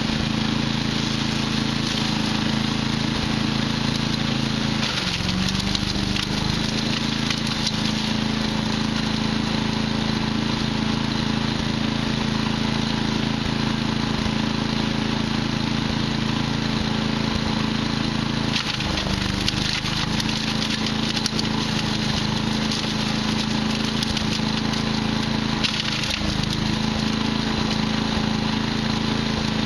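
Patriot wood chipper's petrol engine running steadily. Its pitch dips briefly three times as it bogs under load while branches are fed in and chipped, with a crackle of wood splintering.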